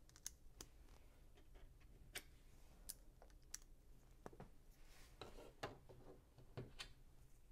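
LEGO bricks and parts clicking and tapping faintly as they are handled and pressed together: about ten sharp little clicks, with a busier patch of clicks and plastic rubbing past the middle.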